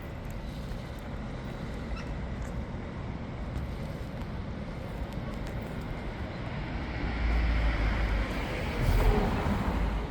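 Street noise: a vehicle passing, growing louder over the last few seconds, with a low rumble.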